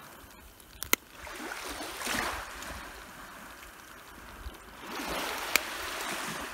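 Small waves washing up on the shore, swelling twice, with a few sharp clicks: two close together about a second in and one more near the end.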